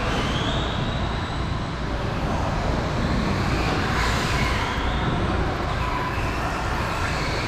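Radio-controlled cars running on an indoor track: a motor whine that rises and falls in pitch several times as they speed up and slow down, over a steady rushing noise.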